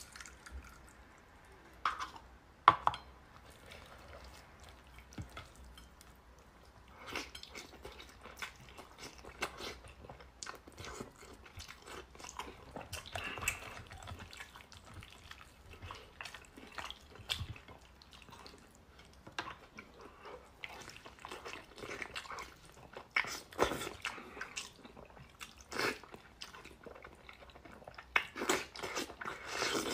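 Close-up eating sounds from a braised lamb head. Sauce is poured over it and drips near the start. Then scattered wet clicks and squelches come as the meat is torn apart by hand, and biting and chewing follow, busier near the end.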